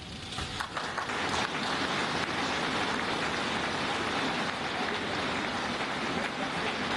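Large audience applauding, building up over the first second or so and then holding steady.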